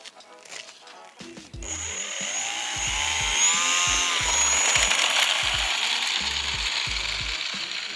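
Electric motor and propeller of a foam RC airplane whining as it flies past close by. The whine starts suddenly, rises in pitch, then drops and fades toward the end. Background music with a steady beat runs underneath.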